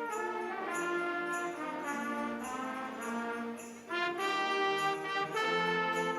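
Brass-led instrumental music with sleigh bells jingling on a steady beat, about two hits a second; the music dips briefly just before the four-second mark, then carries on.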